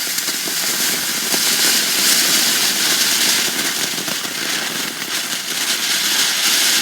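Several consumer fireworks burning together, a loud continuous hiss of spraying sparks with fine crackling.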